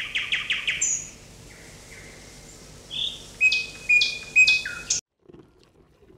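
High-pitched chirping: a fast run of about eight short chirps in the first second, then several separate, louder chirping calls between about three and five seconds in. The last second is near quiet.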